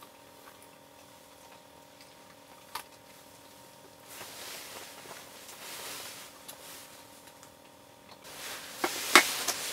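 Close, soft rustling and handling noises over a faint steady hum. A single click comes about three seconds in, and louder rustling near the end finishes in a couple of sharp clicks.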